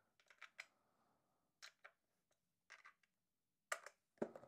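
Faint, scattered clicks and ticks of a hex key seating in and turning hex bolts as they are wound into a 3D-printed plastic case, a short click or two about every second, the loudest near the end.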